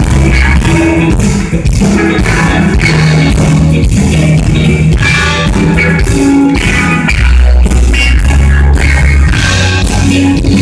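A live band with drum kit, electric bass and electric guitar playing at full volume, recorded overloaded so the sound is saturated and distorted.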